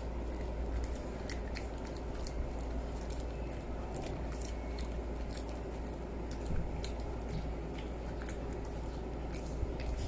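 Shih Tzu gnawing a treat stick: irregular small crunching clicks, over a steady low hum.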